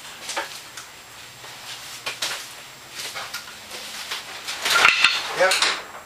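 Scattered metallic clanks and clinks of steel garage-door track and hardware being handled while a sectional garage door is fitted, with a louder knock about five seconds in.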